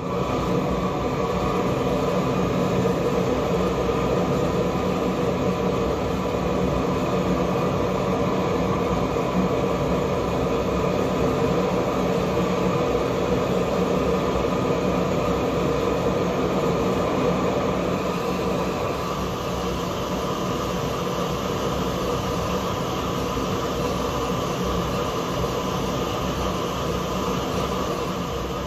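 Propane torch burning steadily with a continuous rushing flame noise, heating a branding iron; it drops slightly in level in the last third.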